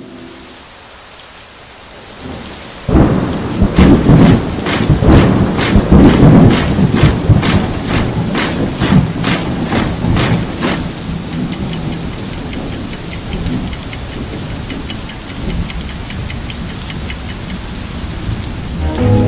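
Thunderstorm: rain hissing, then a sudden loud thunderclap about three seconds in that rumbles and crackles for several seconds before easing back into steady rain.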